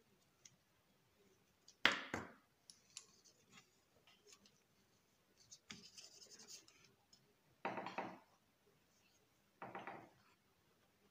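Small handling sounds of plastic nail-tip display sticks being moved and set down on a desk. A sharp click comes about two seconds in, then a brief scratchy rustle, then two short knocks near the end.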